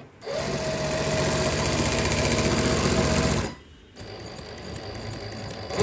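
Mannan King chain-stitch embroidery machine running set for moss stitch: a fast, even stitching rattle over a steady motor hum. It stops about three and a half seconds in, then a quieter hum starts again for the last couple of seconds.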